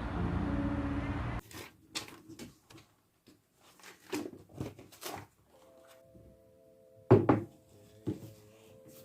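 Background music cuts off about a second and a half in. Then come light knocks and clatters of small objects being handled, a louder thump about seven seconds in, and a faint steady hum from about halfway.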